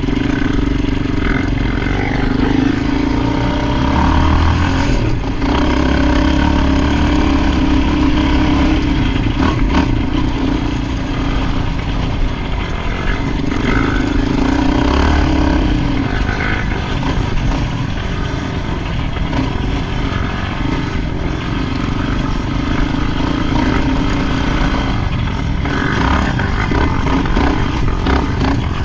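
An ATV engine running continuously while riding, with its note rising and falling in places.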